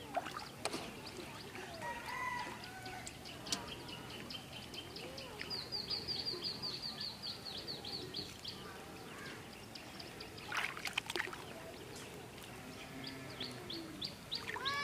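Small birds chirping in quick repeated series, over water splashing and dripping as a nylon gill net is hauled up by hand from shallow water. A louder cluster of splashes comes about ten and a half seconds in.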